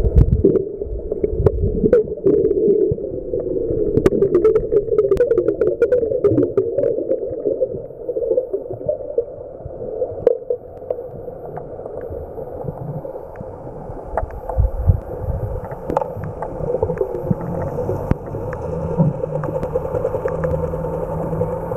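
Underwater sound around bottlenose dolphins: a steady hum with water noise, broken in the first seven seconds by runs of sharp clicks, thickest about four to six seconds in. The clicks fit dolphin echolocation. A low rumble comes and goes later on.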